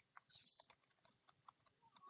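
Faint computer keyboard typing: quick, uneven key clicks during a timed typing test, with a brief hiss about a third of a second in.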